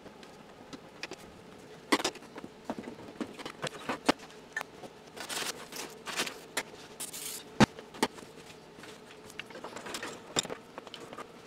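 Hands working on the metal parts of a vintage Universal gas stove: scattered clicks, scrapes and light metal knocks, with a sharper knock about seven and a half seconds in.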